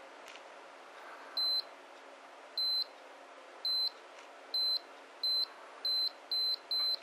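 Powerbuilt digital torque adapter beeping as the torque applied through the wrench nears its 70 foot-pound target: eight short high beeps that come faster and faster.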